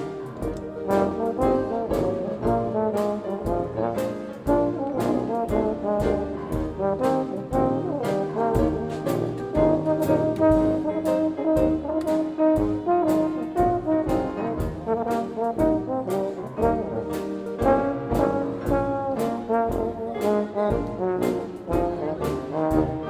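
Live traditional jazz band playing an up-tempo dance tune, with trombone and trumpet over a steady beat.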